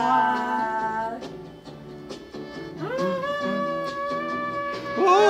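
Music as a sung song ends: the singing stops on a long held note about a second in. After a short quieter stretch with a few sharp clicks, a steady held note sounds for about two seconds, and a louder, wavering note comes in near the end.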